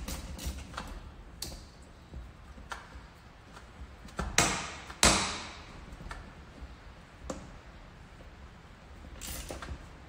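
Small clicks and taps of a screwdriver and the plastic and metal parts of a planter's radial bean meter being worked by hand, with two louder sharp knocks about four and five seconds in, the second the loudest.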